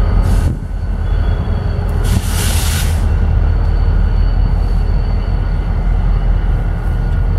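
BNSF EMD GP39-2 diesel locomotives, turbocharged V12 engines running with a steady deep rumble as they pass. A brief hiss comes about two seconds in.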